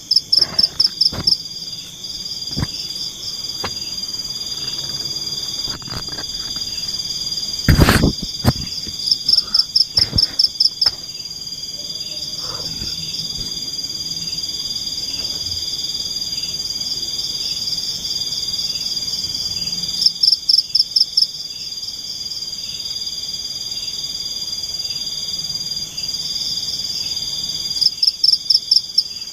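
Tropical forest insect chorus: a steady high cricket trill with a fainter pulse about once a second. Every eight to ten seconds there is a louder run of six to eight rapid, high-pitched pulsed calls. A single sharp knock comes about eight seconds in.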